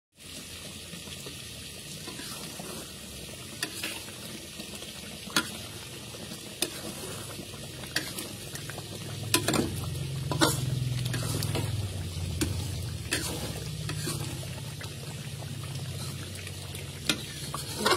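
Chicken rendang sizzling and bubbling in oily sauce in a metal wok while a metal spatula stirs it, scraping and knocking against the pan every second or so.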